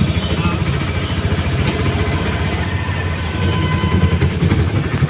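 Auto-rickshaw engine running with a steady, rapidly pulsing rumble and road noise, heard from the open passenger compartment in the back.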